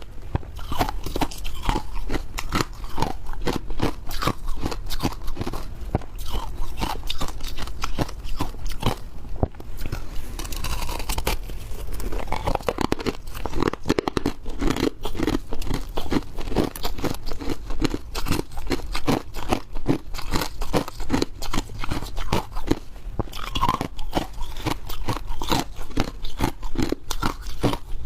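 Close-miked chewing of hard crushed ice: rapid, continuous crunching as the ice cracks between the teeth.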